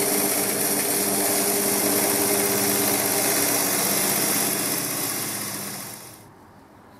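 Wood lathe running with a turning tool cutting the spinning wood: a steady motor hum under a loud hiss of cutting. The sound cuts off suddenly near the end.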